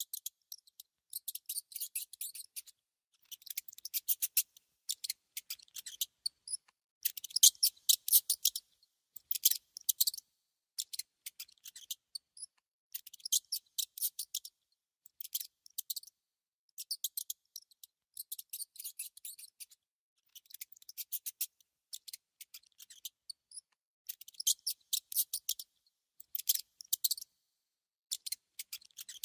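A mouse nibbling and gnawing at food: rapid, crisp crunching clicks in repeated bursts of about a second each, with short pauses between.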